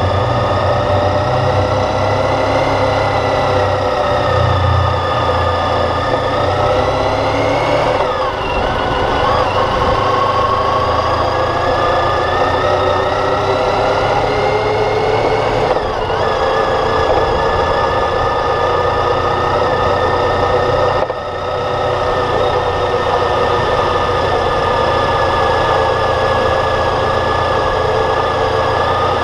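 Motorcycle engine running under way, its pitch climbing, then dropping sharply about a third of the way in and again about halfway, then holding steady.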